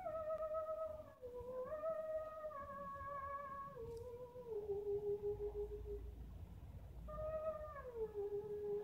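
Slow, wordless melody: a single line holding long notes and sliding smoothly from one to the next.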